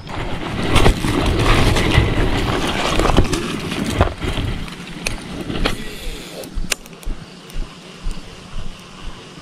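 Motorcycle riding along, with engine rumble and wind noise, that dies down about halfway through. Then come quieter scattered clicks and soft knocks.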